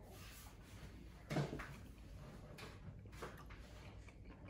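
Quiet sounds of a man chewing a mouthful of rehydrated freeze-dried lasagna, with faint small clicks and one short, louder thump about a second and a half in.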